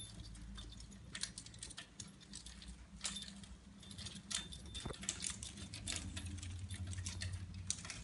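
A caique parrot rattling and pecking at its toys on a bird gym: quick, irregular clicks and jangling.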